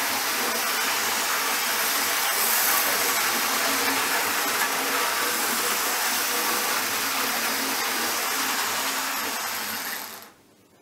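Hornby HST 125 model train running around its track, a steady whirring hiss of its motor and wheels on the rails, which cuts off suddenly near the end as the train comes to a stop.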